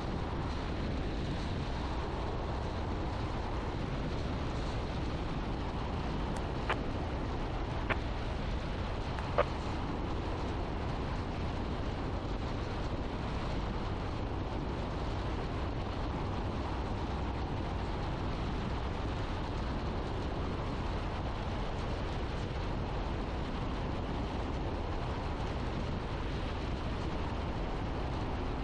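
Steady cabin noise of a Piper Archer PA-28-180 on final approach with full flaps: its Lycoming O-360 four-cylinder engine and propeller at reduced power, together with airflow. Three short clicks come between about seven and nine and a half seconds in.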